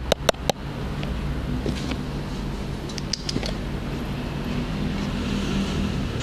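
A steady low hum, like a fan or air conditioner, with a cluster of sharp clicks and knocks in the first half second and a few lighter clicks about three seconds in.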